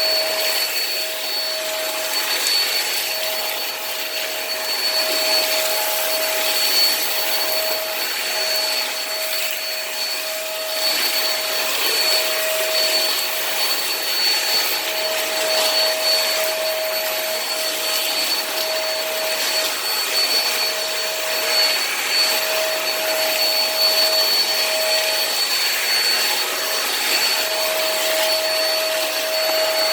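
Hoover React cordless stick vacuum running steadily with a high motor whine as it sucks up cat litter and fine sand-like litter from a hard floor.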